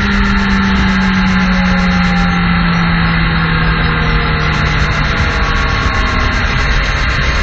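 Suzuki GSX-R sport bike's inline-four engine running at highway cruise under heavy wind rush on the camera's microphone. The engine note drifts slowly lower over the first five seconds, then sinks into the steady wind noise.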